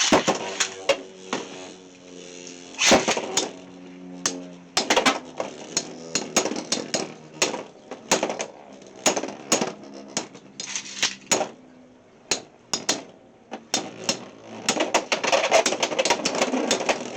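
Beyblade X spinning tops launched into a plastic stadium: a steady whirring hum from the spinning tops, broken by many sharp clacks as they strike each other and the stadium walls, with a denser stretch of rattling clashes near the end.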